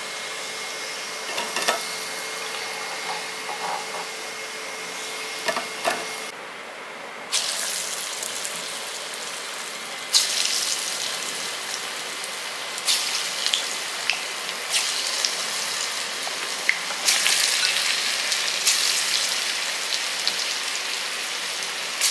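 Hot oil sizzling in a cast-iron kadai as moong dal fritter balls deep-fry, with a few clinks of a metal slotted spoon against the pan in the first seconds. About ten seconds in the sizzle turns suddenly louder and brighter, and it flares again several times as fresh balls of batter are dropped into the oil.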